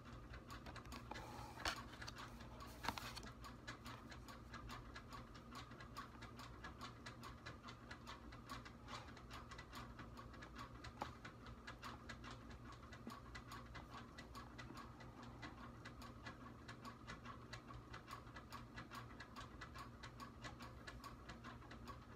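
Quiet room with a clock ticking steadily and a low electrical hum. A couple of soft clicks come in the first three seconds.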